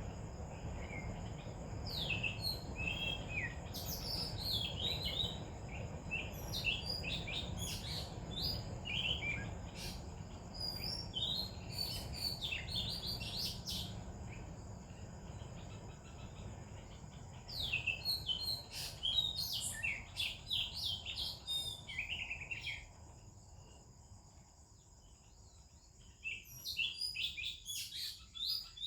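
Oriental magpie-robin singing varied whistled phrases in bouts, pausing twice and starting up again near the end, over a steady high insect buzz.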